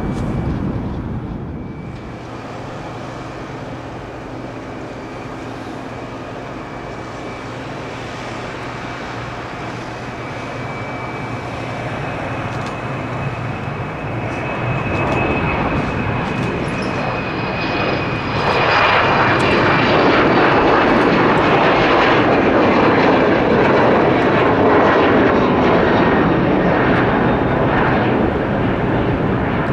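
Embraer E-195LR twin-turbofan jet at take-off power: a steady high whine over broad jet noise. It builds slowly, then swells sharply and stays loud through the last third, the whine falling slightly in pitch.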